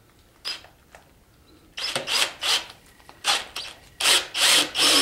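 Cordless drill spinning an oil-pump primer shaft in a Chevy 350 small-block, driving the oil pump to prime it and build oil pressure. It comes as a few short bursts from about two seconds in, then runs steadily from about four seconds in.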